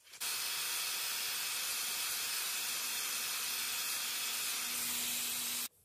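A loud, steady hiss that starts abruptly and cuts off suddenly near the end, with a faint low hum coming in over its second half.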